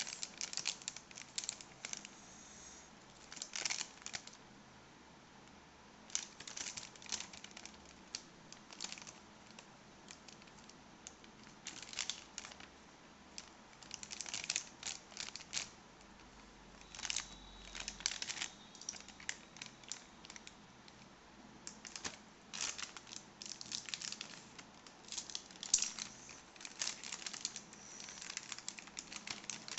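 Clear plastic packaging bag crinkling and rustling in irregular bursts as it is handled and pulled open, with short pauses between.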